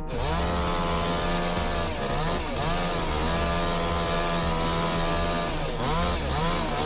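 Chainsaw running at high revs, its pitch dipping and recovering several times: around two and a half seconds in, at about three seconds, and near the end.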